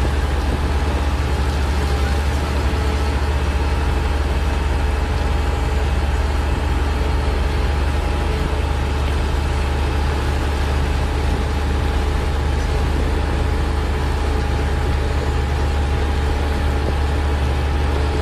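Caterpillar 120 motor grader's diesel engine running steadily under load as the moldboard blade drags and spreads gravel aggregate, a constant deep drone with a steady high whine over it.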